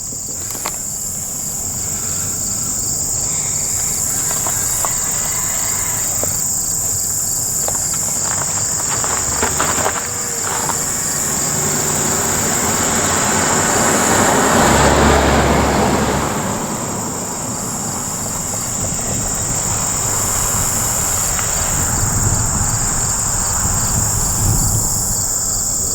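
A steady, high-pitched insect chorus. A vehicle passes along the road, rising to its loudest about halfway through and then fading away.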